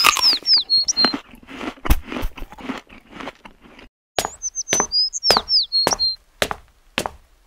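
Footsteps on a paved path: sharp, irregular steps every third to half second, with short runs of high chirps around a second in and again around five seconds. The sound cuts out for a moment about four seconds in.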